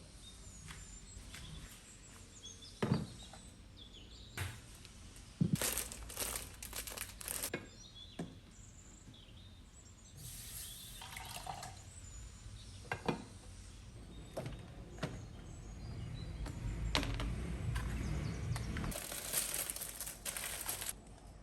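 Kitchen preparation sounds: scattered knocks and clicks of utensils and dishes, crinkling of packaging, and water pouring or running. The steadier hiss with a low rumble comes in the last few seconds.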